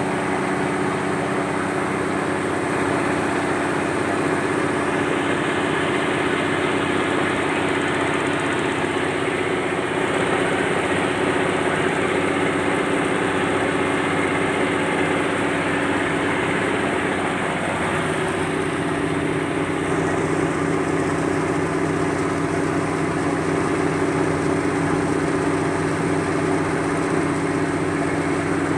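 A boat's turbocharged truck engine running steadily, its pitch shifting slightly past the middle.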